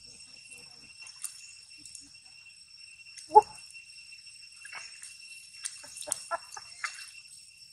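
Young long-tailed macaques giving short, high squeaks and calls: one loud call about three and a half seconds in, then a quick run of squeaks in the second half, over a steady high-pitched drone.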